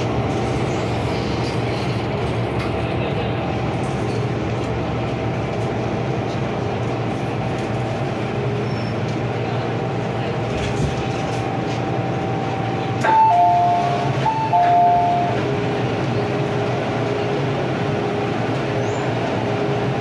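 MTR Island Line M-Train running, heard from inside the car: a steady rumble with a constant whine. About two-thirds of the way in, a two-tone chime sounds twice, about a second and a half apart.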